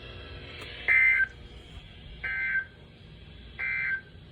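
Three short bursts of EAS digital data tones from NOAA Weather Radio, each a buzzy warble about a third of a second long, evenly spaced about a second and a half apart. This is the end-of-message code that closes the alert.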